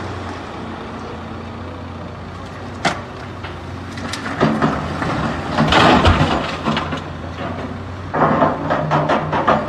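Caterpillar hydraulic excavator's diesel engine running steadily while it loads a dump truck. From about four seconds in, rock dumped from the bucket crashes and rattles into the truck's steel bed, loudest around six seconds and again near the end.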